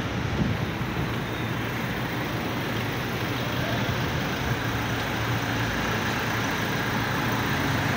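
Road traffic on a busy city street: a steady mix of car engines and tyre noise, growing a little louder near the end as a vehicle comes closer.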